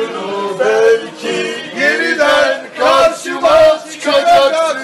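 Male voices singing a song, with sustained notes that bend in pitch.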